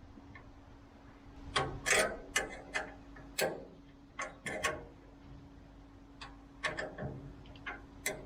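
Irregular sharp clicks and knocks of hand tools and metal bracket parts being handled, about a dozen, heaviest between about one and a half and five seconds in, over a steady low hum.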